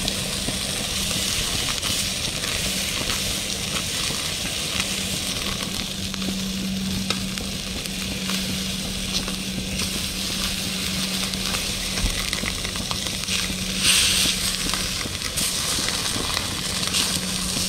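Meat sizzling as it fries on the grill, hot enough that it is starting to burn, with a steady low hum underneath. The sizzle swells for a moment about fourteen seconds in.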